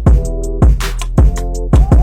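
Electronic background music with a heavy beat: deep steady bass, repeating synth notes and a loud drum hit about every half second.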